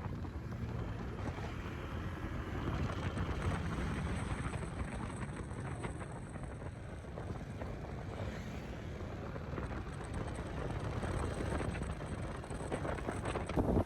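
Honda ADV scooter on the move: engine running under steady wind and road noise on the microphone, with a sudden louder noise near the end.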